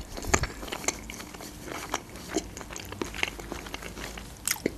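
A person chewing a mouthful of dolma with the mouth closed, close to a lapel microphone: soft wet clicks and smacks that come irregularly.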